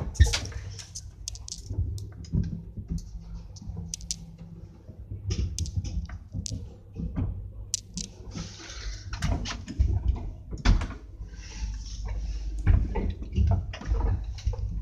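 Transporta lift car travelling between floors: a steady low motor hum with scattered clicks and rattles throughout.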